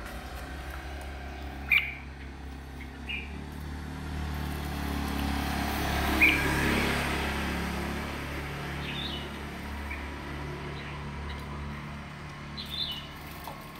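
Short, scattered chirps from caged crested songbirds, one every few seconds. Under them runs a steady low hum, with a broad rushing noise that swells in the middle and fades again.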